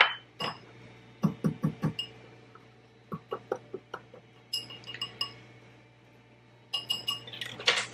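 A small glass jar set down on the counter with a sharp clink at the start, then a small wire whisk clicking and tinging against a ceramic bowl as it stirs dry spice mix. The clicks come in short quick runs and grow denser near the end.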